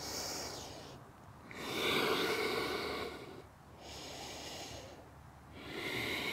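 A woman breathing slowly and audibly, in and out in turn: four long breath sounds, each about a second, with short pauses between.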